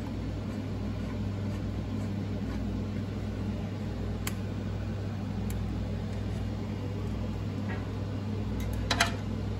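A steady low hum, with a few faint clicks as the mounting screws of a liquid cooler's pump block are turned by hand, and a brief louder clicking sound about nine seconds in.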